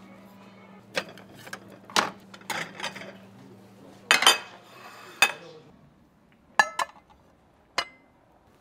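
Metal tongs and white ceramic plates clinking and clacking as grilled trout is plated and the dishes are handled: a string of sharp separate clinks, with a close cluster about four seconds in.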